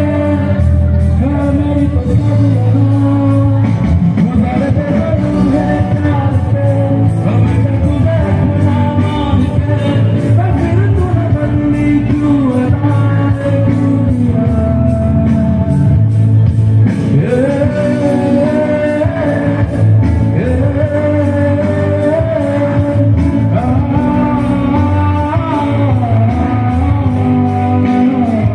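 A live band playing a song: a male singer's voice through a microphone over guitars and keyboard, with a steady beat.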